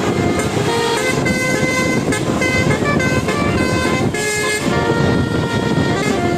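Bus 'telolet' horn playing a melody: several horn tones sound together and step from note to note every fraction of a second, over steady low noise.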